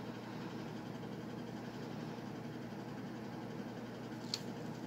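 Steady low mechanical hum of room background noise, with one short faint click about four seconds in.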